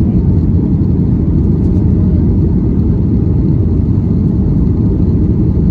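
Steady low rumble of a Boeing 737 MAX 9's CFM LEAP-1B engines and airflow, heard inside the passenger cabin during the climb after takeoff.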